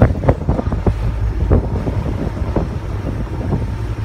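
Motorboat under way at speed: a steady low rumble from the boat, with wind buffeting the microphone in uneven gusts and the wake churning.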